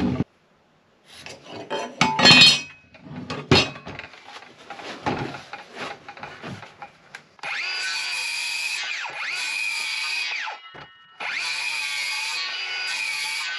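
Irregular knocks and clatter as the saw and beam are handled. About halfway in, a cordless circular saw spins up to a steady high whine and cuts through a wooden beam. It stops for a moment and starts cutting again.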